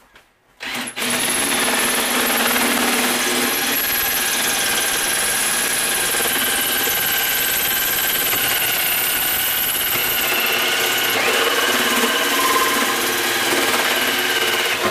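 Porter-Cable cordless drill driving a hole saw through the metal lid of an ammo box. It is a steady loud cutting noise with a high squeal over it, starting about a second in and stopping abruptly at the end as the saw breaks through.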